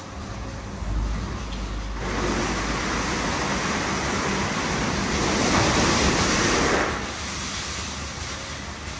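WashTec SoftCare Pro rollover car wash running with a steady machine hum. About two seconds in, a loud hiss of water spraying onto the car starts from the gantry's high-pressure wash. It is loudest around six seconds and drops off about seven seconds in.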